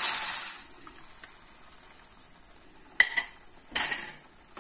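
Ground masala paste sizzling in hot oil in a nonstick kadai, the hiss dying away within the first second. Near the end come two sharp utensil knocks on the pan, a little under a second apart.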